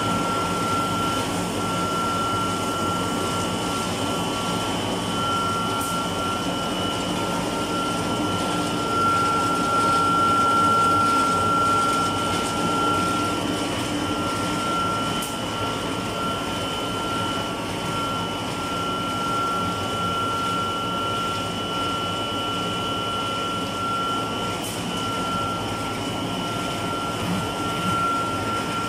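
Electric milling machine with a de-dust system running steadily while grinding powder: a dense mechanical rush with a steady high whine on top.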